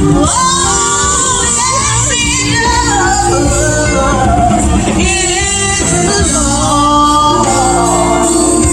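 Song with a lead singer over a band, sung pitch bending and gliding above steady bass and chords.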